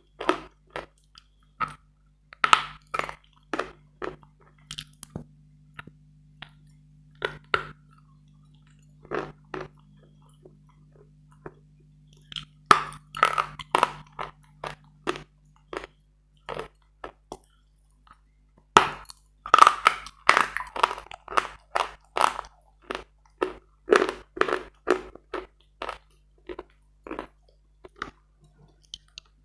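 Close-miked crunching and chewing of hard Bogorodsky chalk, in bursts of quick cracks with pauses between bites, the densest and loudest run about 19 to 26 seconds in. A faint steady low hum sits under the first half.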